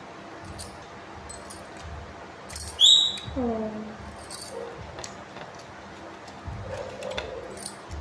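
A pet parakeet gives one sharp, falling squawk about three seconds in. Around it are soft jingles of glass bangles and small handling clicks as the bird is hand-fed.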